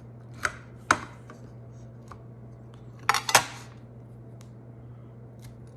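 Table knife clicking and scraping against a rock-hard, overcooked microwaved cookie on a plate: two sharp clicks in the first second, then a short burst of scraping clicks about three seconds in. A steady low hum runs underneath.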